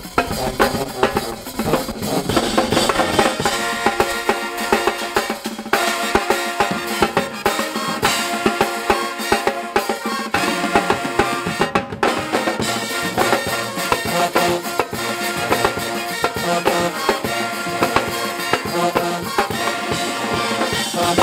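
Pep band playing: sousaphones, saxophones and trumpets in held chords over a drum kit and marching tenor drums. The whole band cuts off for an instant about twelve seconds in, then comes back in.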